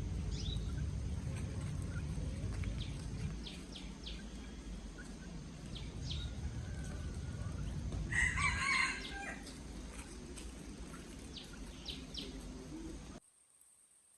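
A rooster crows once, about eight seconds in, over scattered short high bird chirps and a steady low rumble. The sound cuts off suddenly near the end.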